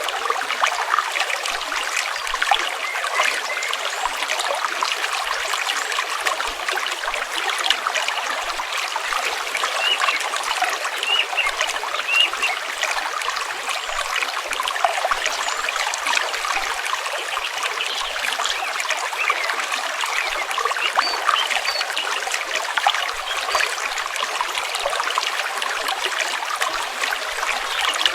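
Stream water trickling and gurgling in a steady flow, full of small splashes.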